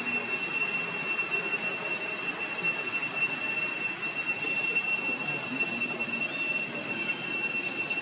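Steady outdoor insect chorus: several high-pitched whining tones held level without a break, over a low even background hiss.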